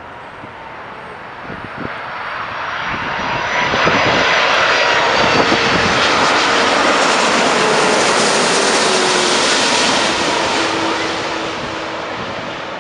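Airbus A330-200 airliner's jet engines flying past on landing. The noise swells to a peak about four seconds in, holds, then fades, with whining tones that slide down in pitch as it passes.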